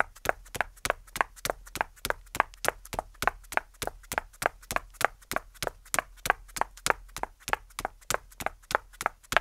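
Hard-soled footsteps clicking on paving and then tile floor in a quick, even rhythm, about three to four steps a second.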